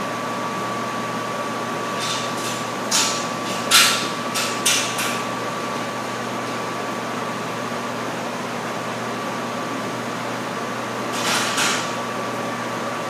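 Steady mechanical hum with a constant thin high tone, broken by a cluster of short, sharp hissing sounds about two to five seconds in and two more near the end.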